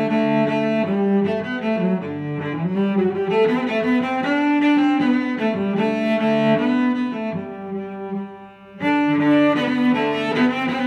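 Instrumental background music of sustained pitched notes, dipping briefly about eight seconds in before picking up again.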